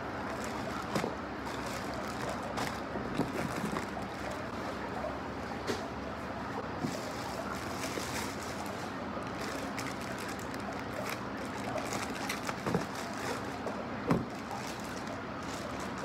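Plastic packaging crinkling and rustling as wrapped clothing items are handled and unpacked, with a few sharper crackles and soft knocks, over a steady low background hum.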